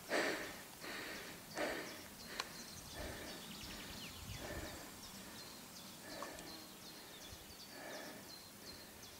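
Slow breathing close to the microphone, a soft breath about every second and a half, from a hiker just arrived at a summit after a strenuous climb. Faint, high chirping repeats quickly behind it.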